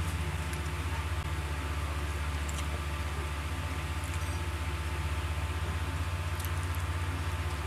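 A person eating noodles with a fork: faint slurping and chewing with a few light clicks, over a steady low hum.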